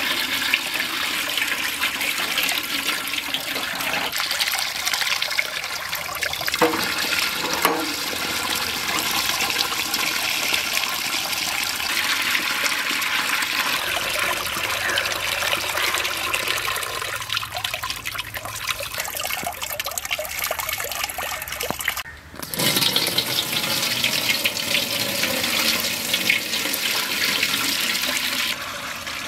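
Water pouring and splashing steadily, with a short break about 22 seconds in.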